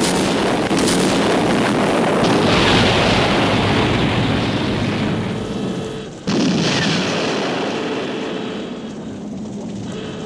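Two sound-effect explosions: a sudden blast at the start followed by a long, loud noisy wash, then a second sudden blast about six seconds in that slowly dies away.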